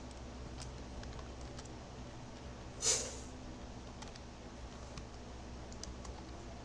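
Faint typing and clicking on a computer keyboard over a low steady hum, with one short, louder rush of noise about three seconds in.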